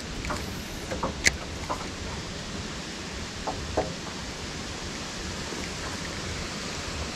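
Steady hiss of wind on the microphone, with a few light clicks and taps from handling a spinning reel.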